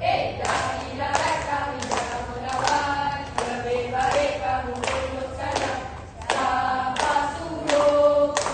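A troupe of school cadets singing together in unison, with sharp rhythmic hits, claps or stamps, landing on the beat about every two-thirds of a second.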